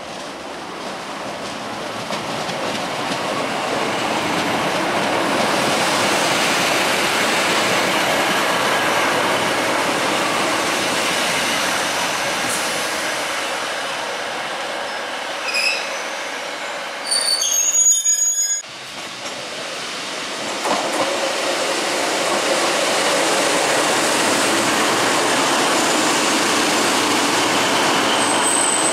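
Northern Class 156 diesel multiple units running through stations: a steady, building rumble, with high-pitched wheel squeal about halfway through that cuts off abruptly. After that comes the steady running noise of a Class 319 electric multiple unit moving along a platform.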